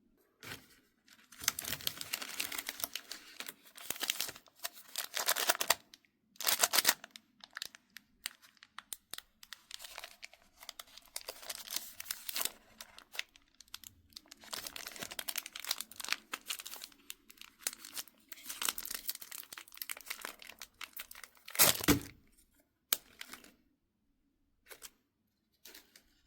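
Plastic wrappers of mini chocolate bars being crinkled and torn open in repeated bursts, with one louder tear about 22 seconds in.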